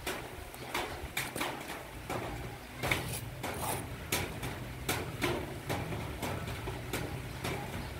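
Puppies on a concrete floor making irregular clicks and taps, about two or three a second, over a steady low hum.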